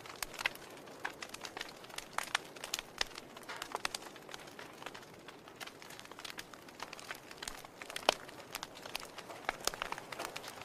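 Wood fire in a fireplace crackling: irregular sharp pops and snaps from the burning logs over a soft steady hiss, with one loud pop about eight seconds in.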